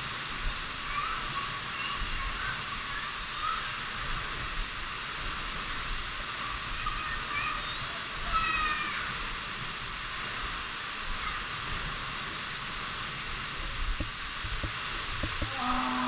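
Waterfall pouring into a rock pool, a steady hissing rush of falling water, with a few faint short whistles over it.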